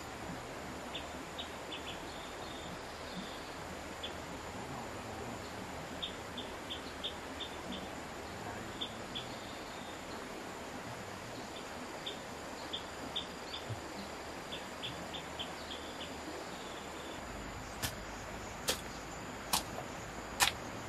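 Outdoor forest ambience: a steady hiss with a thin high insect whine and scattered clusters of short high chirps. Near the end come four sharp knocks, about a second apart.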